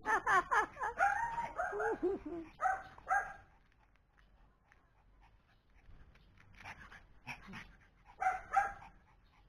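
Pomeranian's high yaps and whines during rough play: a quick run of short, sliding calls for about the first three seconds, then two brief bursts near the end.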